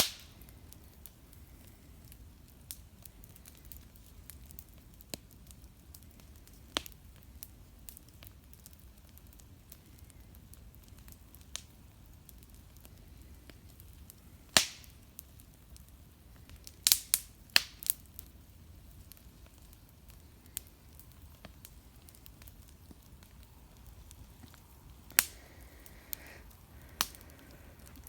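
Fireworks going off: scattered sharp bangs and cracks, some with a short echo, including a quick run of four or five cracks about two-thirds of the way through, over a low steady background noise.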